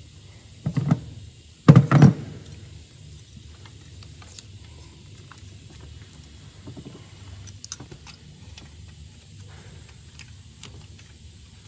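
Metal high-pressure fuel pipes being handled and lined up on diesel injector unions: faint small metallic clicks and taps, with two loud thumps about one and two seconds in.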